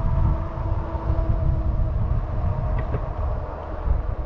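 Wind buffeting the microphone of a moving e-bike in gusty, uneven rumbles, with a fainter steady whine from the RadRover Step-Thru's hub motor underneath.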